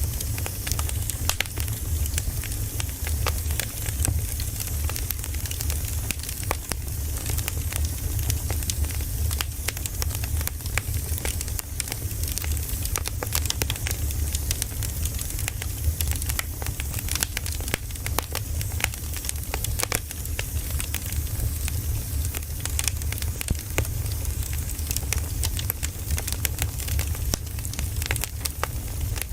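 Campfire burning, with frequent irregular crackles and pops of the wood over a steady low rumble.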